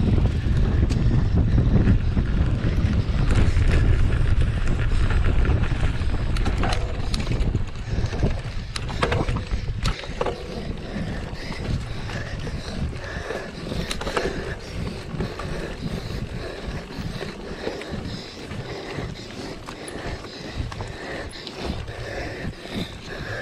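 Wind buffeting the microphone of a moving mountain bike, heavy for about the first ten seconds and then easing off, leaving the clicking and rattling of the bike rolling over rough ground.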